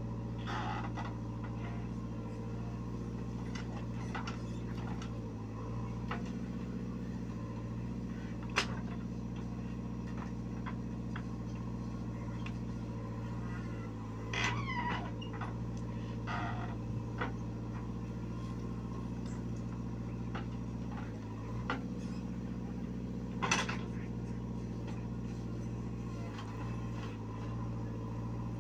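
Diesel engine of a JCB 3DX backhoe loader running steadily while the backhoe digs soil. Two sharp knocks well apart, and a short falling squeal between them.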